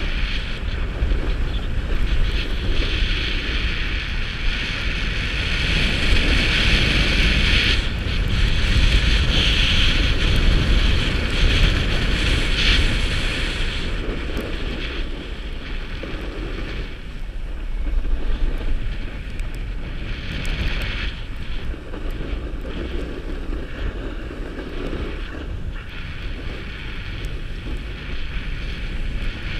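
Wind rushing over the microphone while skiing downhill, with the steady hiss and scrape of skis on packed snow. The hiss is brightest over the first half and eases off about halfway through.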